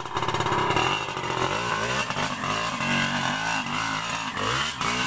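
Trail motorcycle engine revving, its pitch rising and falling several times as the throttle is worked.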